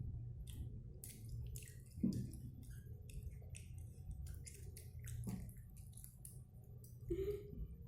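A child chewing pentol (Indonesian meatballs) with sambal close to the microphone: irregular wet smacks and squelches of eating.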